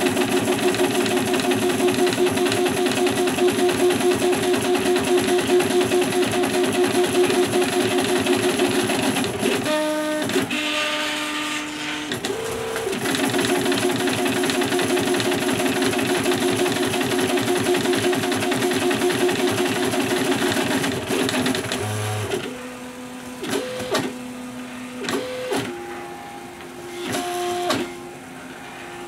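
Stepper motors of a wooden-framed, RepRap-style 3D printer whining at several pitches while it prints. For about the first ten seconds the tones are dense and steady; after a short break they return, and in the last several seconds the sound is quieter and jumps between separate held pitches as the head and bed change moves.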